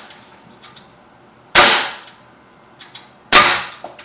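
Two shots from a Sig Sauer M17 CO2 air pistol firing .177 pellets, about two seconds apart. Each is a sharp crack that fades quickly and is followed by a few faint ticks.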